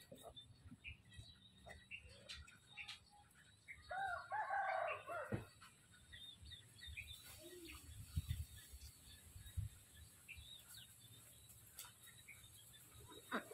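A rooster crows once, a call of about a second and a half starting about four seconds in, with faint small bird chirps around it.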